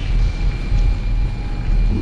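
Dark horror-film drone score: a low rumble that pulses, under a thin steady high tone.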